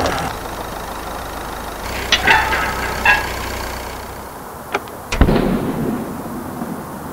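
A steady low mechanical hum like a running engine, with a few sharp clicks and knocks and one heavy thump about five seconds in.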